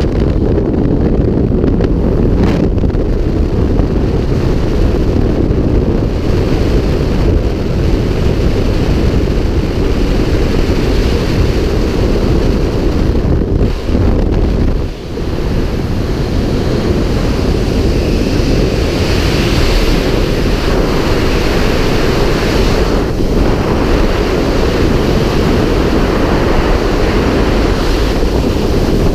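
Freefall wind blasting over a GoPro action camera's microphone during a skydiving tracking jump: a loud, steady, deep rush. It dips briefly about halfway through and gains more high hiss toward the end.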